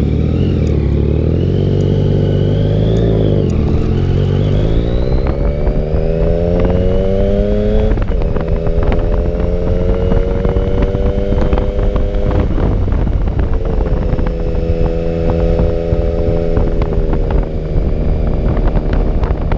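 Motorcycle engine pulling away: low revs at first, then revs climbing steadily for a few seconds, a gear change about eight seconds in, then steady cruising with brief drops in revs later on.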